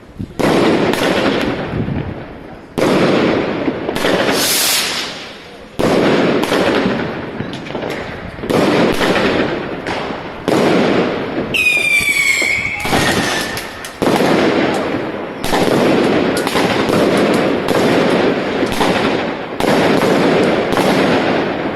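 Consumer fireworks going off shot after shot, about one sharp bang a second, each trailing off in crackle. About halfway through, a whistling effect glides down in pitch.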